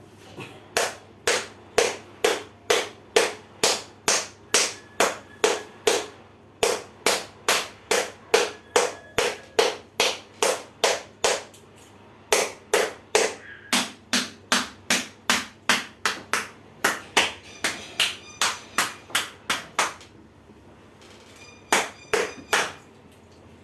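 Rhythmic percussive strikes on the patient's body, about two a second, in several runs with brief pauses between them and a short final burst of three near the end.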